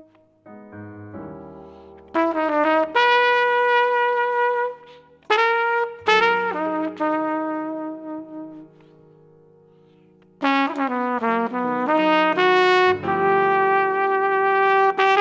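Jazz big band's horn section playing: after a soft start, quick rising figures land on loud held brass chords, followed by a couple of short separate chords. After a lull of about two seconds the full section comes back in with another rising run to a held chord.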